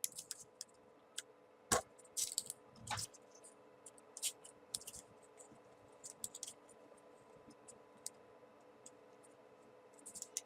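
Small folded paper 3D origami pieces being handled and pushed onto a paper model: scattered soft paper clicks and crinkles, with a few louder ones in the first few seconds.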